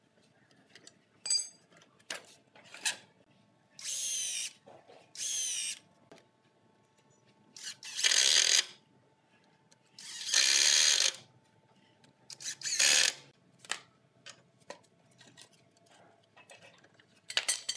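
Cordless drill run in about five short bursts, drilling into the joints of a wooden table frame; the early bursts rise and fall in pitch as the trigger is squeezed, and the longest, loudest run comes in the middle. Between bursts there are clicks and knocks from a wrench on the steel bar clamps.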